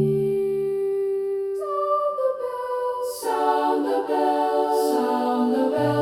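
Music from a slow carol with no words: long held notes moving from chord to chord.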